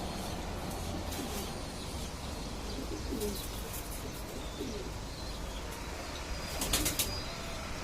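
Domestic pigeons cooing: several low, rolling coos, with a quick run of sharp clicks about seven seconds in.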